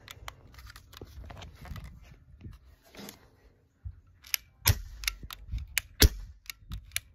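CO2-powered airsoft pistol firing about ten sharp shots in quick succession, two to three a second, beginning about halfway through, after faint handling clicks. It is emptying its magazine of BBs.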